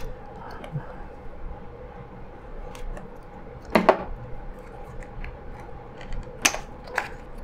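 Hands handling small cardboard product packaging: scattered light clicks and taps, with a sharper knock about four seconds in and two more in the last second or so. A faint steady hum runs underneath.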